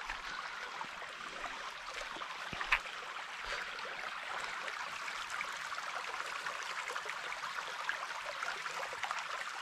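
Small, shallow woodland creek trickling and burbling over stones in a steady wash of water noise, with one sharp click a little under three seconds in.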